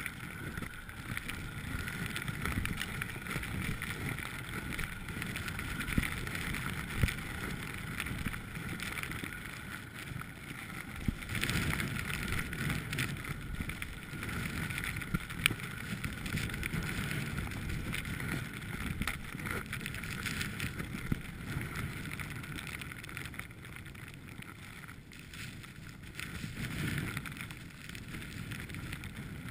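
Strong wind buffeting the microphone in a low, uneven rumble, over the steady hiss of skis sliding on snow, with a few sharp clicks.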